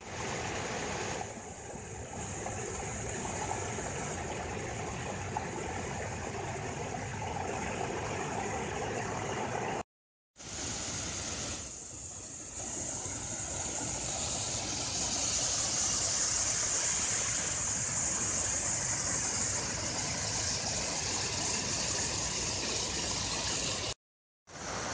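Water pouring over a low concrete dam spillway and churning white below it: a steady rush, broken by two brief silent cuts, about ten seconds in and just before the end.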